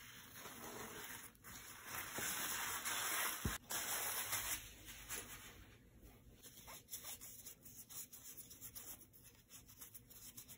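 Paper towel rustling and rubbing as it is handled and pulled away, loudest about two to five seconds in. After that come faint, scattered ticks and light scratches.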